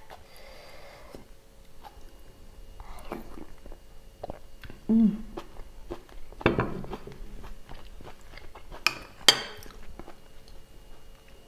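Eating sounds: a metal spoon clinking and scraping against ceramic bowls and a plate, with chewing. A short hum about five seconds in, and the sharpest clinks about nine seconds in.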